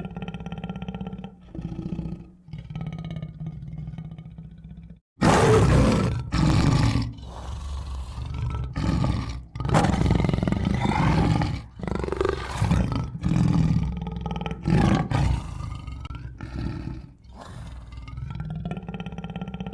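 Tiger growling low, then after a short silence about five seconds in, a run of loud roars and growls that eases back to quieter growling near the end.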